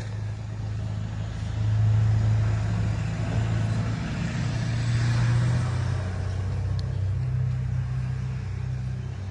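A vehicle engine running steadily at idle, a low hum that swells slightly a couple of times.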